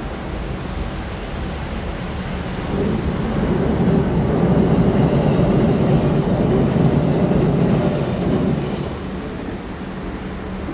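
A train passing by: its rumble builds about two and a half seconds in, is loudest for several seconds, then fades near the end.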